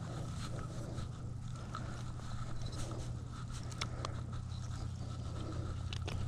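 Scattered light clicks and scrapes of hands handling a caught bass and rummaging at a nylon backpack, over a steady low hum.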